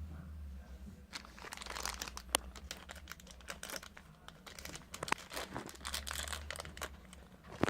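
Plastic toy packaging being crinkled and torn open by hand: a run of irregular crackles and small snaps starting about a second in.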